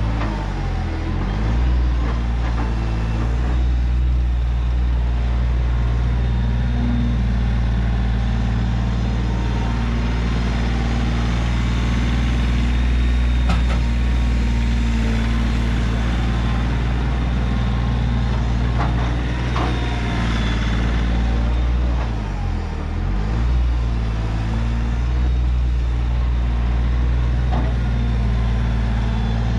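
Kioti CK3510 compact tractor's three-cylinder diesel running steadily under load while the front loader works, dropping in pitch briefly about a second in and again about two-thirds of the way through. A few brief knocks come in the middle as the bucket is worked over the trailer.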